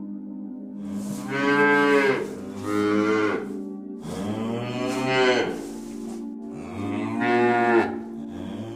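Cow mooing, four long calls one after another, over background music.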